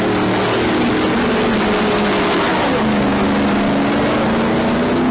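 A motor vehicle engine running steadily, its pitch dropping a little about halfway through.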